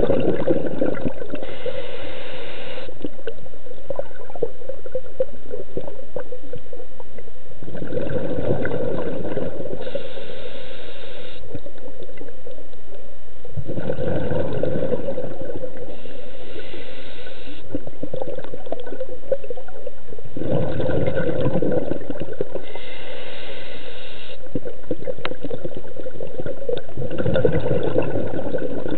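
Scuba diver breathing through a regulator, heard underwater: a bubbling rush of exhaled bubbles about every six to seven seconds, each followed by the hiss of an inhalation through the regulator.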